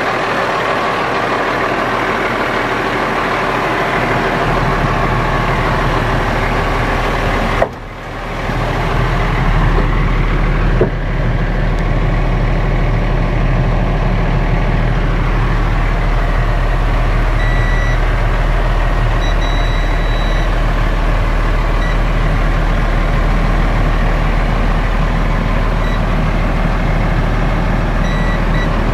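2009 Freightliner M2 water truck's diesel engine idling steadily, heard from inside the cab. A sharp knock comes about eight seconds in, the sound dips briefly after it, and a second click follows about three seconds later.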